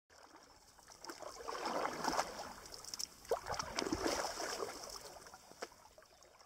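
Water splashing and trickling, swelling twice in the middle, with small clicks and gurgles.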